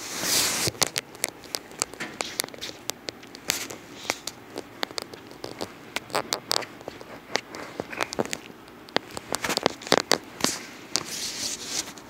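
Handling noise from a phone held close: irregular crackles and clicks as fingers and the moving phone rub near the microphone, with a rustling burst at the start and another near the end.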